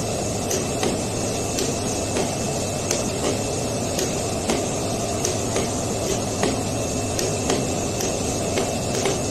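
Flatbed digital cutting plotter running as its knife head cuts a printed sticker sheet: a steady whirring hum with frequent short, sharp clicks at irregular intervals.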